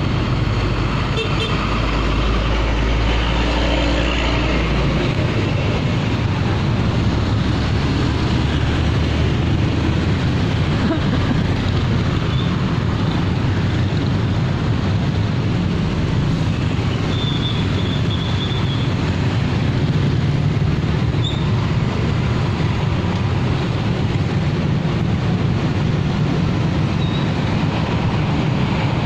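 Steady traffic noise of heavy diesel trucks and other vehicles crawling past in a traffic jam, a low engine rumble throughout, loudest in the first five seconds. A short high beep sounds a little past the middle.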